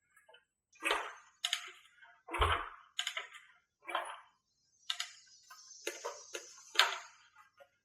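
Irregular clicks and clinks of hand tools and metal parts being handled, about one or two a second, with a dull knock about two and a half seconds in.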